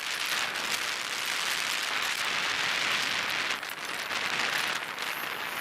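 Steady hiss like falling rain, with faint fine patter through it.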